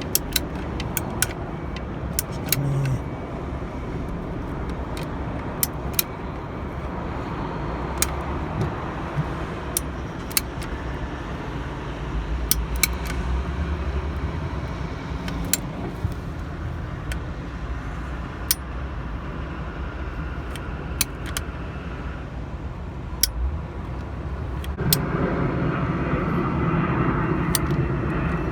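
Caulking gun filling a leaking roof joint with sealant: scattered sharp clicks over a steady outdoor rumble, which grows louder near the end.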